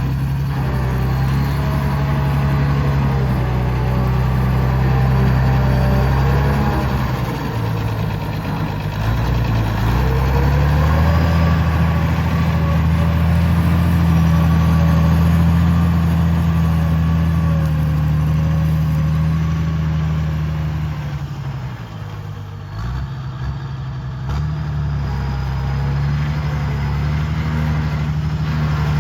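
CBT 1105 tractor's Mercedes-Benz OM 366 six-cylinder diesel running under work, a steady low engine note. The engine sags and picks back up about nine seconds in, and dips again for a moment a little past twenty seconds.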